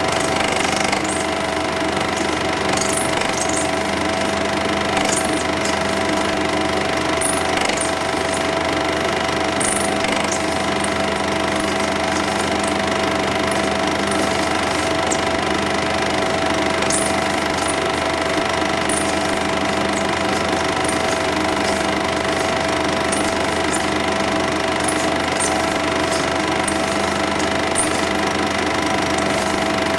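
8mm cine projector running: a steady mechanical whirr and clatter over a constant hum, with scattered faint ticks.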